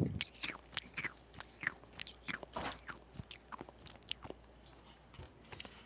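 Hard star candies (byeolsatang) being crunched between the teeth: an irregular run of short, sharp cracks, several a second.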